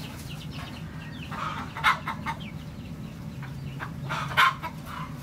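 Chickens clucking, with many short high calls and louder calls about two seconds in and again near the end.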